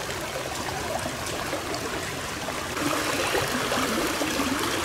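Steady rushing of muddy floodwater from an overflowing mountain stream, getting a little louder about three seconds in.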